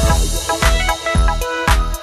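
Background music: an electronic, funk-style track with a steady drum beat of about two beats a second, bass and keyboard notes.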